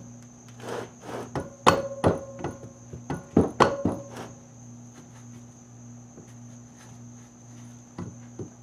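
Small hammer tapping on valve spring retainers held down by an LS valve spring compressor on a GM 243 cylinder head, to knock the retainers free. There are about nine sharp strikes in the first four seconds, several with a short metallic ring, then only a couple of light ticks near the end.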